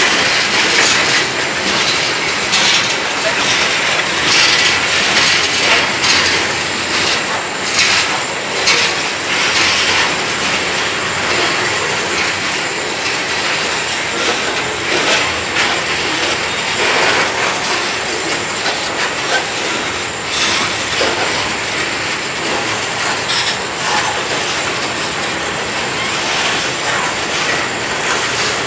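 Freight train's covered hopper cars rolling steadily past, their steel wheels clattering and clicking on the rails.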